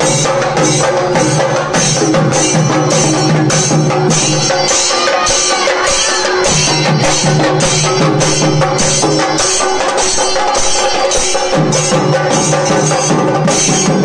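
Kerala singari melam ensemble playing: chenda drums beaten at a fast, steady beat with cymbal strokes. A held low note runs under it and drops out twice.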